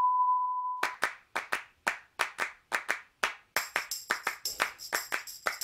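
A steady test-pattern beep fades out about a second in. It is followed by the start of a music track: a quick, uneven run of sharp handclaps, joined about three and a half seconds in by high ringing tones.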